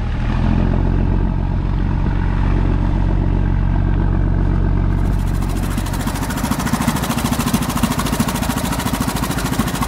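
Fishing boat's engine running steadily. About five seconds in, the sound changes to a quicker, more distinct, even pulsing beat.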